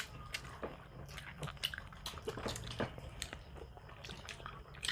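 People chewing and biting food, heard as a scatter of short, soft, irregular clicks.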